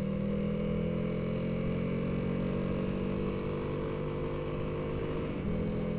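Motorcycle engine running steadily while under way, its note sagging slightly and then briefly dipping and recovering about five seconds in.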